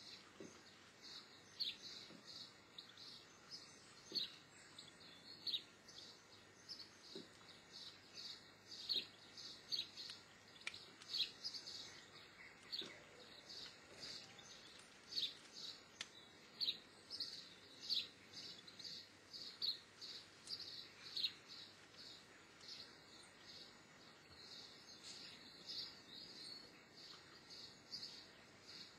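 Rapid, irregular series of short, high-pitched chirps, several a second, some sliding down in pitch, with a few soft knocks.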